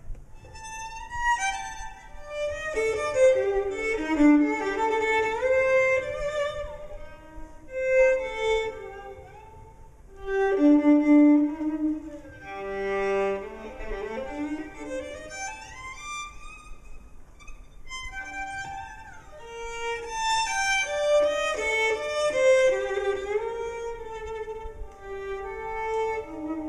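A violin bowing a slow, freely phrased melody with sliding notes between pitches.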